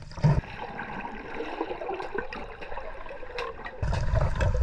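Water gurgling and sloshing around a spearfisher's camera in the sea, with a brief low thump near the start. A louder low rush of water comes in near the end.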